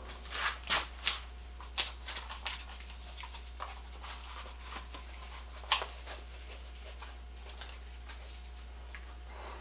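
Light clicks and knocks of tools and wood being handled on a workbench, coming quickly in the first few seconds, with one louder knock near the middle, then only a few faint ticks over a low steady hum. No sander is running yet.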